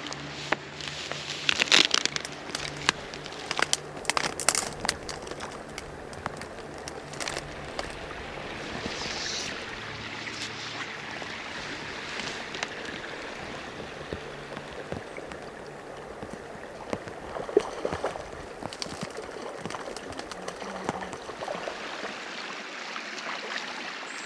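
Steady hiss of rain falling on a pond, with sharp crackles and rustles from close movement in the first few seconds and again briefly later on.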